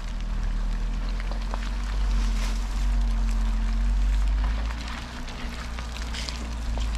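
Jeep Wrangler engine running at a slow crawl: a low, steady rumble and hum. Close to the microphone, scattered crackles and snaps of footsteps on dry twigs, brush and pine needles.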